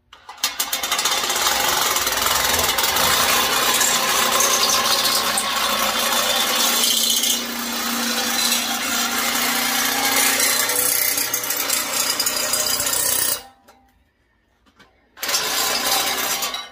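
Drill-driven metal nibbler attachment running and punching its way through 18-gauge copper sheet, a dense rapid clatter over the drill motor. It runs for about thirteen seconds with a short dip about seven seconds in, stops briefly, then starts again near the end.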